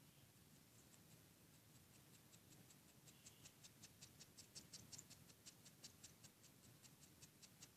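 Faint, quick clicking from a pet bird's beak, several small clicks a second, starting about a second in and stopping near the end.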